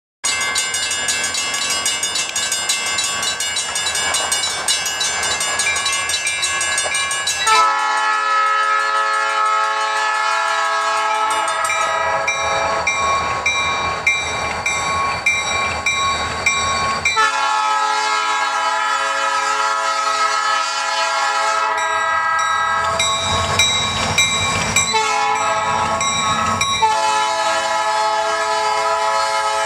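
Diesel freight locomotive's air horn sounding the grade-crossing signal: a long blast about seven seconds in, a second long blast, a short one, then a long one held to the end. Under it a rapid metallic ringing runs throughout, which fits the crossing-signal bells, and the locomotive's rumble grows as the train nears.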